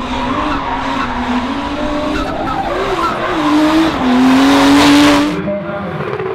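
Nissan Skyline R32 drift car's engine held high in the revs, its pitch wavering as the throttle is worked, with tyre squeal and skid noise as the car slides. It is loudest about four seconds in and falls away suddenly about five and a half seconds in.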